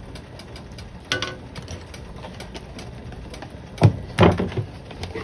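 Stovetop cooking and handling sounds: a faint crackle of small ticks throughout, a knock about a second in, and a cluster of louder knocks and clunks around four seconds in, as heavy cream goes into the sauce pan.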